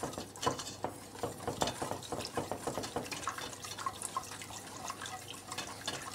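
Wire whisk beating a thick flour-and-egg-yolk batter in a metal saucepan, a rapid run of light clicks and scrapes against the pan, while a thin stream of milk trickles in.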